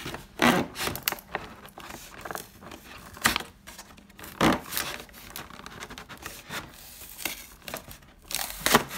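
A printed cardboard box being pried open by hand, its glued end flap scraping and tearing away, with crinkling and rustling and several sharp cracks as the card gives way.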